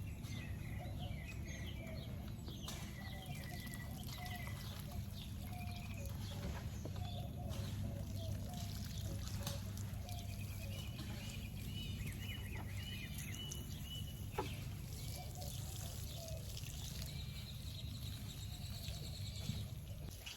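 Homemade liquid fertilizer trickling out of a container onto garden plants, over a steady low hum. Birds chirp repeatedly throughout.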